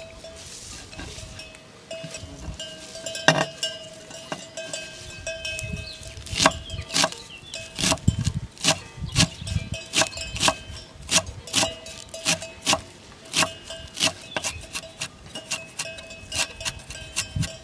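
Kitchen knife chopping fresh herbs on a wooden cutting board, the blade knocking the board about twice a second from a few seconds in.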